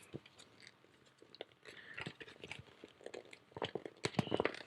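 Thick vinyl coil-cleaning bag being unfolded and handled: scattered crinkles and crackles of heavy plastic, busiest near the end.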